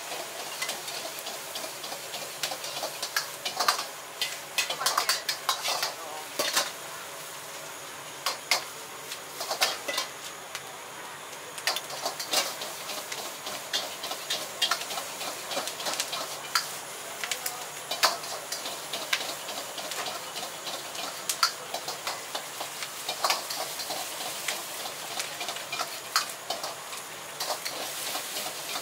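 Metal ladle scraping and clanging against a wok during stir-frying over a high gas flame, with food sizzling in the pan. Frequent sharp ladle strikes come over a steady hiss.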